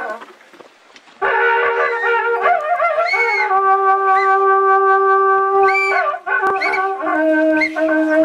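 Andean curled horn trumpet (wakrapuku) played in long held notes with brief upward flourishes, after a short quieter gap at the start.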